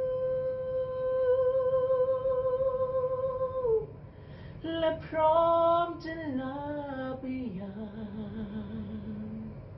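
A man singing wordless vocal ad-libs of a Thai ballad: a long high note held with vibrato for nearly four seconds, a short break, a quick run of notes, then a lower note held near the end.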